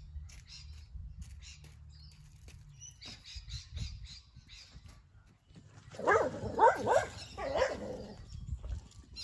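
Small birds chirping in quick repeated runs, then about three loud harsh calls from a larger animal about six seconds in, with a low rumble underneath.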